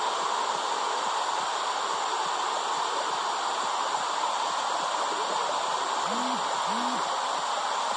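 Womb sound for soothing babies: a steady, even whooshing hiss like rushing water. Two faint short hums rise and fall about six and seven seconds in.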